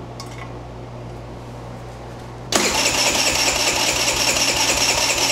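Tao Tao Pony 50's GY6 139QMB 50cc engine being cranked over for about three seconds, starting suddenly about two and a half seconds in and stopping near the end, to spin the stator while its charge coil output is measured.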